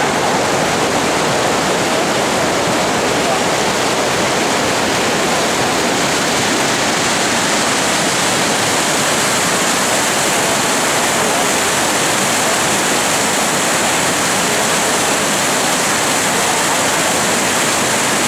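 Whitewater rushing steadily through a concrete slalom canoe course channel, a continuous loud roar of rapids.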